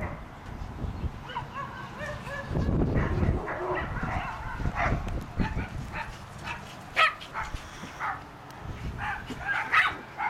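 Small Japanese Chin dogs barking and yipping at play, with many short high-pitched barks scattered through, the sharpest about two-thirds of the way in and just before the end.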